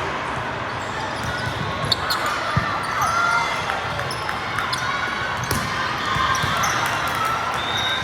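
Gymnasium sounds of a volleyball rally: sharp smacks of the ball and short sneaker squeaks on the court floor over a steady murmur of voices.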